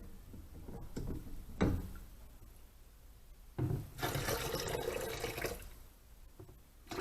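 Water running and splashing for about two seconds, starting a little past the middle, after a single knock about one and a half seconds in.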